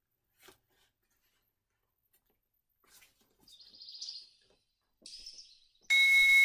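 A quiet stretch with two soft, brief swishes as a pair of large fabric hand fans are spread open. Near the end, music cuts in suddenly and loudly with high steady tones over pitched notes.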